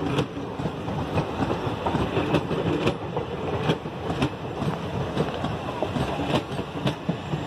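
Indian Railways passenger coaches rolling past at speed: a steady rumble of wheels on rail, with sharp clicks as the wheels cross the rail joints.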